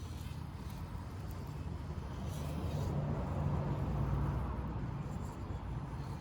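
Axial SCX24 1/24-scale rock crawler's small electric motor and drivetrain running as it crawls, getting louder for a couple of seconds near the middle, with a few light clicks.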